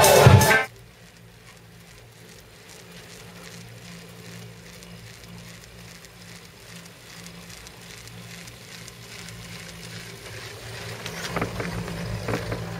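Loud dance music cuts off sharply within the first second. Then a chairlift ride: the lift's low, steady hum with faint clicks, growing louder near the end with a run of clacks and rattling as the chair nears a lift tower.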